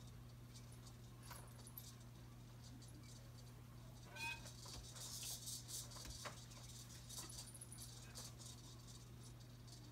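Faint clicking and rattling of a baby activity jumper's tray toys, mostly from about four to eight seconds in, over a steady low electrical hum, with a brief squeak about four seconds in.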